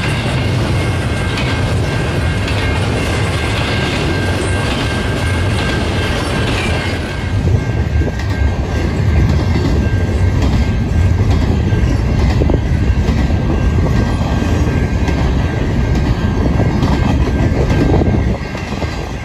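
Double-stack intermodal freight train rolling past close by: a continuous rumble of container cars on the rails. It gets louder about a third of the way in and drops slightly near the end.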